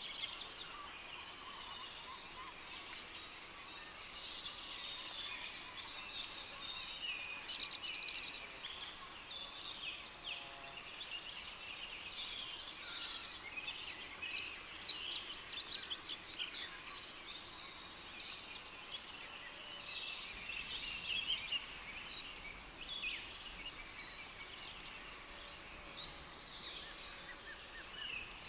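Tropical rainforest ambience: a cricket chirping in a steady, high, evenly pulsed rhythm several times a second, with various birds calling over it.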